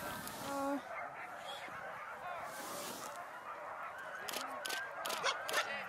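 Many sled dogs yelping and howling together in an overlapping chorus, the excited noise of teams harnessed and eager to run at a race start. A series of sharp clicks comes through in the second half.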